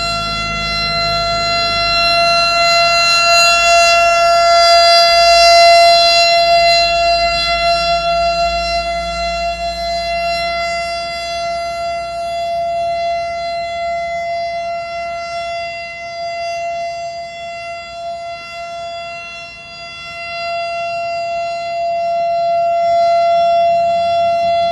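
Siren sounding one long steady note of unchanging pitch, its loudness swelling and fading slowly, with a dip near the end before it swells again.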